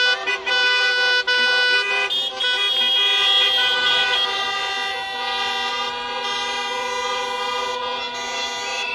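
Many car horns held down at once, their steady tones overlapping into a continuous din, with a few brief breaks in the first couple of seconds: the honking of a celebratory car parade.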